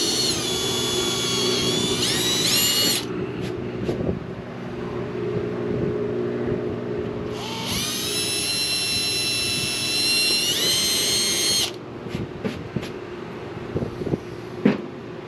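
Cordless drill pre-drilling pilot holes through thin hardboard: a high motor whine in two spells, changing pitch a few times, the second spell stopping about three quarters of the way in. A few light knocks follow, with one sharp knock near the end.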